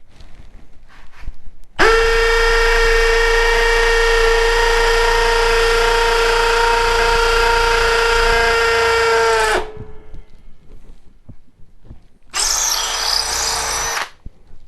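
Milwaukee M18 Fuel cordless hammer drill in hammer mode boring into concrete with full body weight on it: a steady, loud run of about eight seconds that cuts off sharply. About two and a half seconds later it runs again in a shorter burst of about two seconds.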